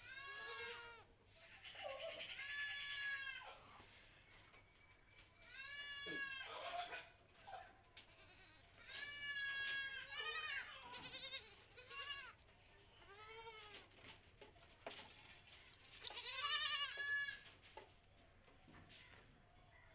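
A young goat kid bleating over and over: about eight quavering calls with short pauses between, the loudest near the end. The kid is bleating in protest while its blistered mouth is held and wiped.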